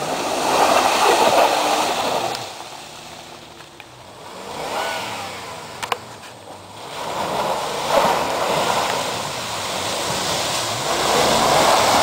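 Jeep Cherokee engine revving up and down as it is driven off-road. A loud rushing noise comes in the first couple of seconds and again from about eight seconds in, with a sharp click near the middle.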